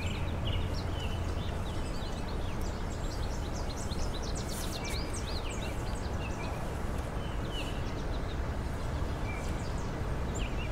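Small birds chirping in quick repeated calls over a steady low background rumble.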